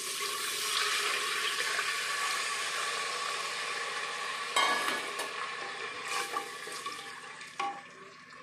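Water poured into hot oil and crackled cumin in an aluminium pressure cooker, hissing and sizzling loudly as it hits the oil. The hiss dies down over the last few seconds, with a sharp knock about halfway through and another near the end.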